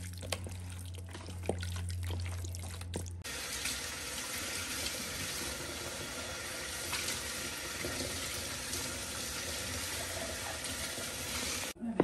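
Hands squishing raw marinated chicken in a plastic bowl, with small wet clicks over a steady low hum. About three seconds in, a kitchen tap starts running into a stainless steel sink, runs steadily, and is shut off shortly before the end.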